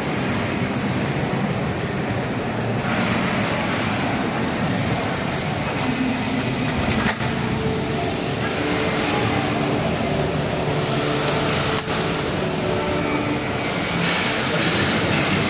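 Steady din of a large exhibition hall: an even mechanical-sounding noise with faint distant voices mixed in.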